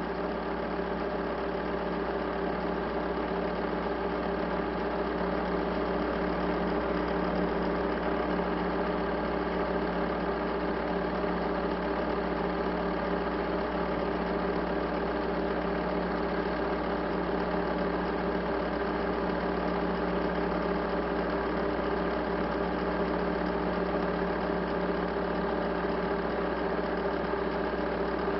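A steady, unchanging machine-like hum made of many fixed tones, at an even level throughout.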